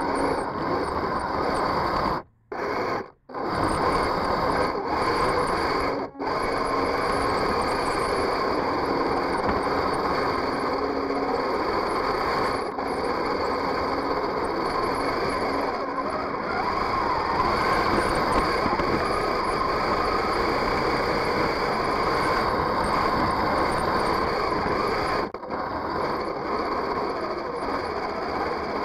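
A 1/16 scale radio-control tank's drivetrain running as it drives on a dirt trail: electric drive motors and gear trains whining steadily, heard close up from a camera mounted on the hull. The sound cuts out twice, briefly, about two and three seconds in, as the drive stops and restarts.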